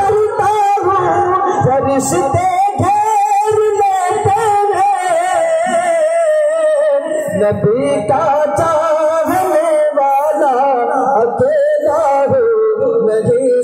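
A man singing a naat (Urdu devotional poem in praise of the Prophet) solo into a microphone, drawing out long, wavering held notes with slow glides in pitch.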